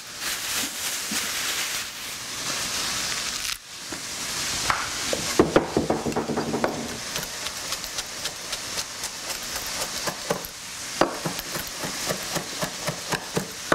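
A chef's knife chopping fresh cilantro on a wooden cutting board, a regular run of knocks at about two a second through the second half, over the steady sizzle of ground lamb frying in a pan. A plastic produce bag rustles in the first few seconds.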